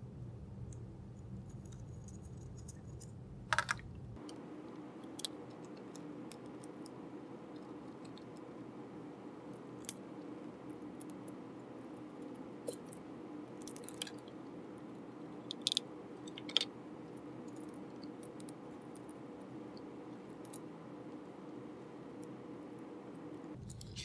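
Scattered small clicks and taps of screws and brass standoffs being fitted into a keyboard's switch plate by hand, over a steady low hum.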